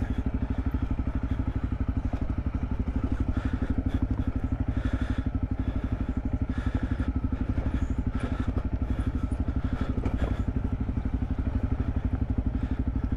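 Honda CRF250L's single-cylinder four-stroke engine running at a steady, even beat.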